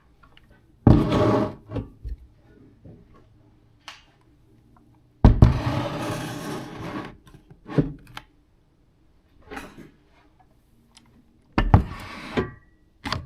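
Chainsaws being set onto a wooden wall shelf: knocks and scraping of the saws against the wood in three bursts, about a second in, a longer one in the middle, and near the end, with light clicks and taps between.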